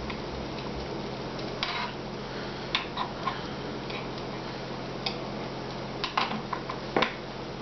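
Knife and fork clicking and tapping against a plastic cutting board while cutting a grilled chicken strip. The clicks come irregularly, about seven in all, the loudest near the end, over a low steady hum.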